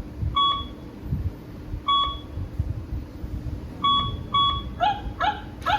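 Remote-control robot toy dog beeping four short electronic beeps, then giving three quick electronic yapping barks near the end, over a low rumble.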